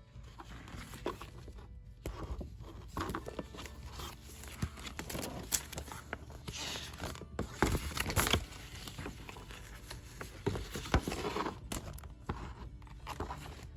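Packaging rustling and crinkling as items are unwrapped and handled by hand, with irregular light taps and clicks.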